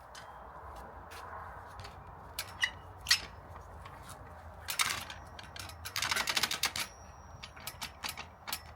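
Scattered sharp clicks and taps from work on wooden ceiling panels, with a run of rapid clicking about six seconds in that lasts under a second.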